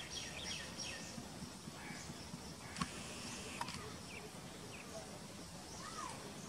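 Small birds chirping over quiet outdoor ambience: a quick run of high chirps in the first second, then a few scattered calls. Two sharp clicks come near the middle.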